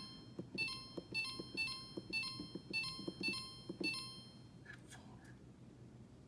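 Samsung refrigerator control panel beeping with each button press, a quick run of short electronic beeps, about two to three a second, with a soft tap of the finger under each, as the temperature is stepped to 34 degrees. The beeps stop about four seconds in.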